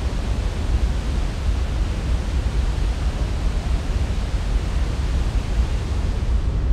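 Steady roar of a large waterfall: a continuous rush of falling water with a heavy, deep rumble underneath.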